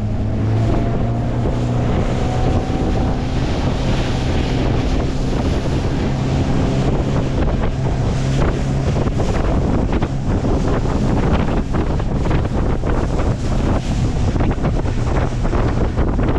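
A 16-foot jon boat's outboard motor running steadily under way, a constant low hum, with heavy wind buffeting the microphone and water rushing past the hull.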